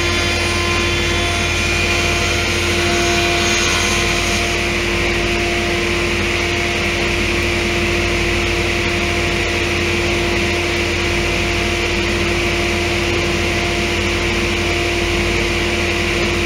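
Step-motor-controlled CNC milling machine running with its circular saw blade spinning: a steady, loud mechanical hum and hiss with a constant tone. A fine whining layer fades out about four and a half seconds in, and the hiss grows slightly.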